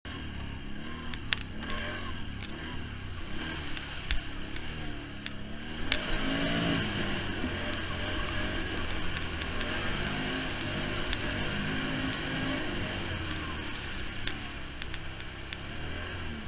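Off-road vehicle engine running and revving up and down, getting louder about six seconds in, with a few sharp knocks in the first part.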